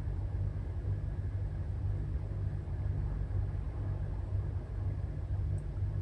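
Steady low rumble with a faint even hiss above it, with no distinct events: continuous background noise from an unidentified machine or room source.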